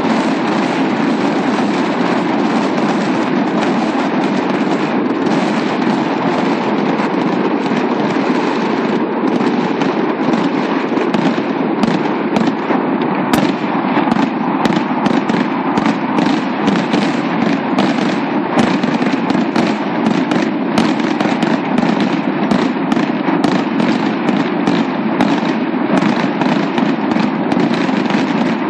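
Aerial fireworks going off: a steady dense wash of noise with sharp cracks and pops, which come thick and fast from about ten seconds in.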